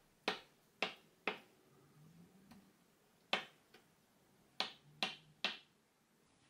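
Santoku kitchen knife chopping down through a block of tofu, the blade knocking on a wooden cutting board. Three quick chops come first, then one more about three seconds in, then three more near the end.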